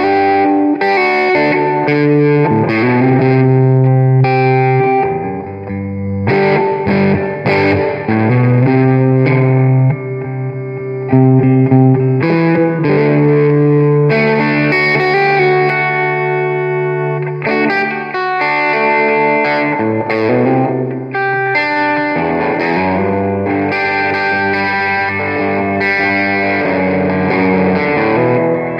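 Les Paul-style solid-body electric guitar played through an amplifier with effects, with long ringing chords and single notes.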